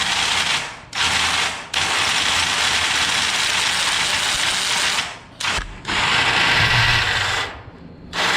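Power drill driving a hole saw, with a smaller hole saw nested inside it as a guide, cutting to enlarge a bore hole for a mortise deadbolt. It runs loud and steady, stopping briefly a few times between spells of cutting.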